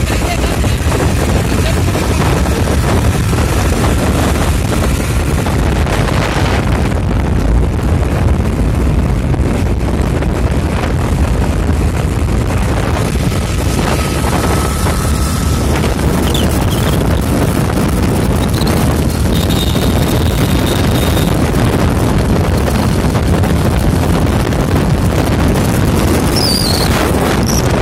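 Wind rushing over the microphone of a moving motor scooter, with the scooter's engine and tyre noise underneath, steady throughout.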